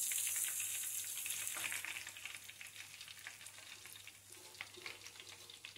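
Hot oil sizzling and crackling with many small pops as a breaded beef milanesa is lifted out of the frying pan. The sizzle is strongest at first and dies down gradually.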